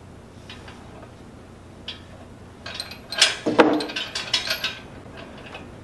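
Steel lifting chain and hook of an engine hoist clinking and rattling as they are handled. A cluster of sharp clanks starts about two and a half seconds in and runs for about two seconds.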